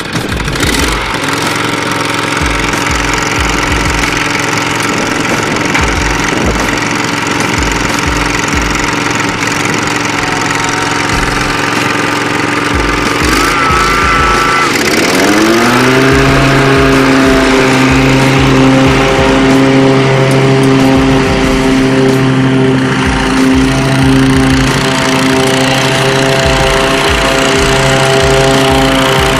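Wright Velke commercial walk-behind mower's gasoline engine running steadily. About fifteen seconds in it speeds up to a higher pitch and then holds steady as the mower cuts tall grass.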